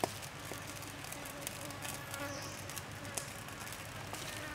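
An insect buzzing: a wavering drone for about two seconds in the middle, over sparse sharp ticks and crackles from the glowing charcoal.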